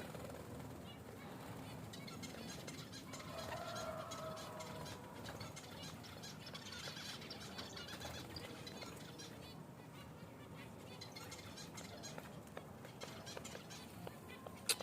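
Faint, quiet bird sounds from a ring-necked parakeet, with one soft drawn-out call about three seconds in and a few faint higher chirps later.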